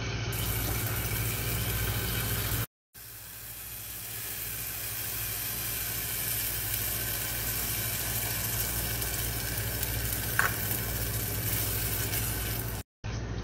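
Yogurt-based marinade cooking in a pot on the stove, a steady sizzle, with a silicone spatula stirring it. The sound cuts out briefly twice, and after the first gap the sizzle builds back up slowly as cream goes into the pan.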